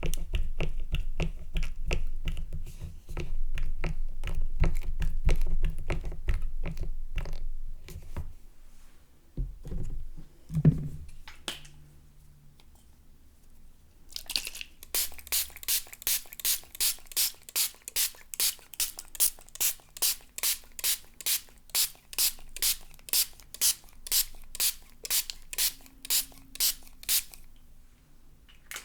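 A liquid soap pump dispenser being pumped over and over, wet squelching clicks in quick succession, stopping after about ten seconds. After a short pause, a spray bottle sprays in a long even series of short hissing bursts, about two a second.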